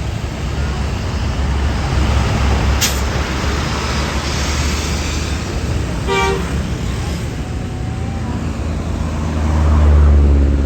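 Heavy bus engine running close by, with a sharp hiss about three seconds in and one short horn toot about six seconds in. The engine rumble swells louder near the end as a bus moves off.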